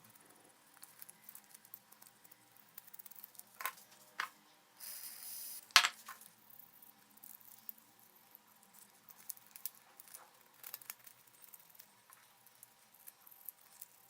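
Light clicks, taps and handling noises from work on the parts of a blender under repair, with a short hiss about five seconds in and a sharp click right after it.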